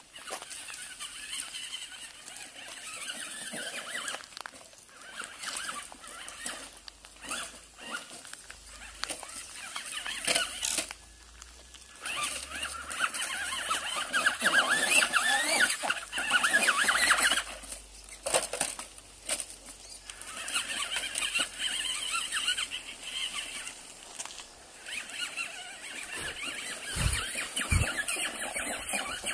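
Traxxas Rustler XL-5 RC truck driving over gravel and stony ground: its brushed electric motor and gears whine in surges as the throttle comes and goes, and the tyres crackle over loose stones.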